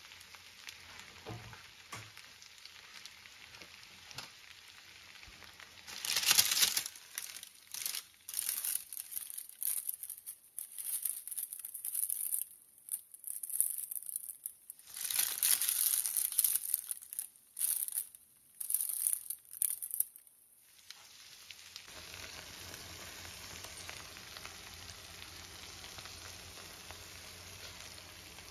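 Baking parchment paper crinkling and rustling in loud irregular bursts as the paper parcel is pulled open, from about six seconds in until about twenty. After that comes a steady faint hiss.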